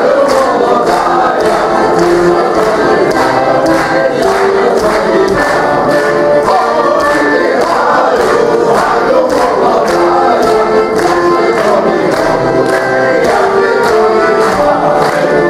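A group of men and women singing a Ukrainian folk song together in chorus, with a steady beat running underneath.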